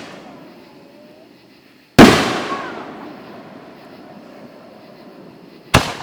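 Two loud bangs from a rack of aerial firework shells firing slowly, one shell at a time. The first comes about two seconds in and is the louder; the second comes near the end. Each rolls off in a long echo.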